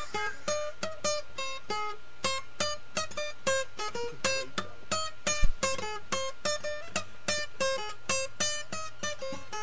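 Acoustic guitar playing a quick, even run of single picked notes, about three a second, with no singing.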